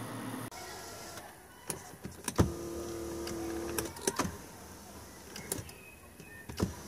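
Clicks and knocks inside a car, the loudest about two and a half seconds in. It is followed by a small electric motor humming steadily for about a second and a half.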